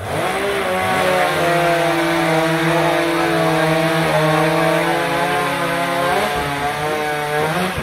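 Two petrol chainsaws running flat out at the same time, cutting through a log in a timbersports race. Their engine notes hold steady, with small shifts in pitch.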